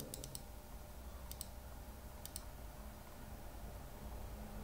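Faint clicks at a computer: a quick run of three near the start, then a pair about a second in and another pair about a second later, over a low steady hum.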